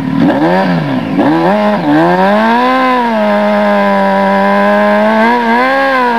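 Honda CBR900RR Fireblade's inline-four engine blipped a few times, then revved up and held at high revs while the rear tyre spins in a burnout, with a short extra rise near the end.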